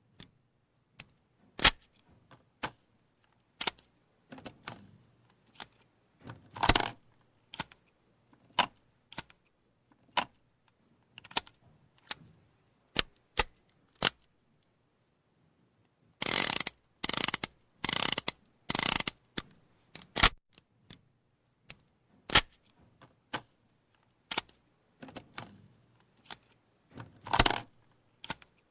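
.38 revolver being reloaded and cocked: a long series of separate sharp metallic clicks, with a denser run of brighter metallic rattling a little past the middle.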